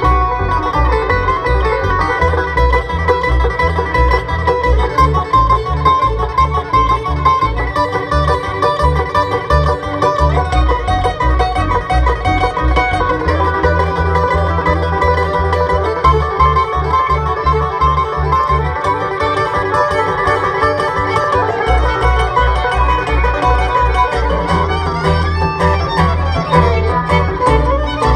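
Bluegrass band playing an instrumental break with no singing: banjo and fiddle over guitar and upright bass, the bass keeping a steady pulsing beat.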